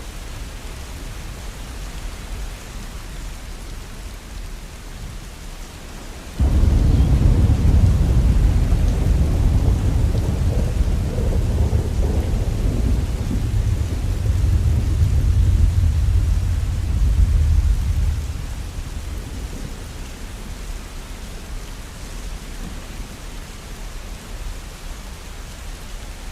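Steady falling rain, with a long low rumble of thunder that starts suddenly about six seconds in and dies away about twelve seconds later.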